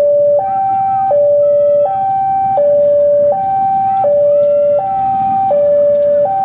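Electronic two-tone railway level-crossing alarm, sounding continuously and switching between a high and a low note about every three quarters of a second. Underneath it a CC 203 diesel-electric locomotive runs at low speed, with brief wheel squeals.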